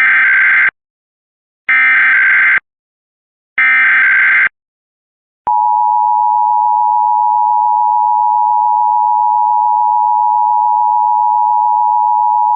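Emergency Alert System header: three short bursts of shrill warbling data tones about two seconds apart, then, about five seconds in, the steady two-tone EAS attention signal. This opens a flash flood warning broadcast.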